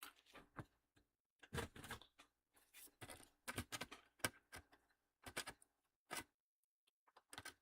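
A run of irregular small clicks and taps from handling a laptop and its parts, such as plastic panels and components being removed and fitted.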